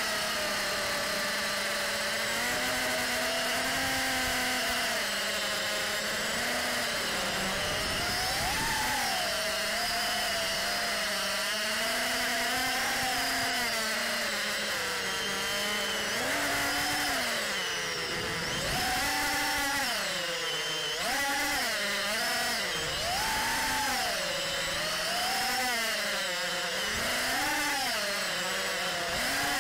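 Electric motors and propellers of an FPV aircraft, heard through its onboard camera. The whine rises and falls in pitch about once a second with the throttle.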